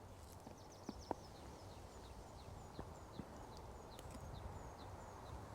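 A small songbird singing a faint series of thin, high, downward-slurred notes that step lower as the song goes on, lasting about four seconds. A few faint clicks sound alongside, the clearest about a second in.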